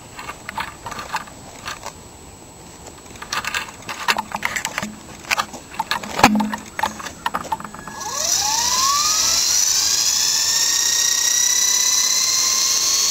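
Scattered clicks and knocks, with one sharp knock about six seconds in. About eight seconds in, the electric motor of a Hummingbird fixed-pitch RC helicopter spins up with a quickly rising whine, then holds a steady high whine as the glue-repaired rotor blades turn.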